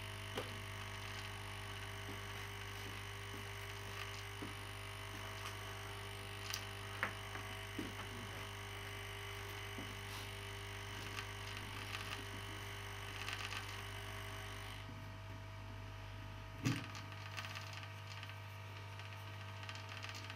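Aoyue INT852A+ hot air rework station running, a steady hum and hiss of its air supply as it blows hot air to desolder a chip. Scattered faint clicks, part of the high hiss drops away about three-quarters through, and there is one louder knock near the end.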